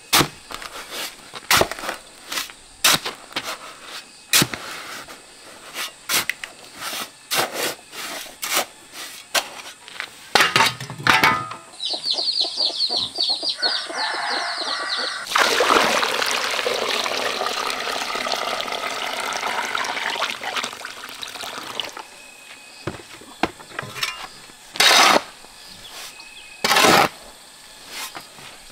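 A steel shovel scrapes and strikes a concrete floor in rapid, repeated strokes as sand and cement are mixed dry for mortar. Partway through, chicks peep briefly. Then water is poured into a hollow in the mortar pile for about six seconds, and a few more shovel scrapes follow near the end.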